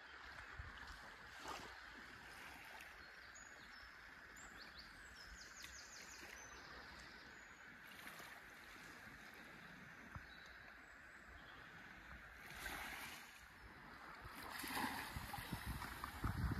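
Faint seaside ambience: small waves lapping on a sandy shore, with faint bird chirps. Two louder washes of water come near the end, then a low rumble of wind on the microphone.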